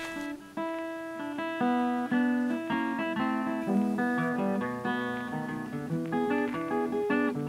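Background music: an acoustic guitar picking out a melody, note after note.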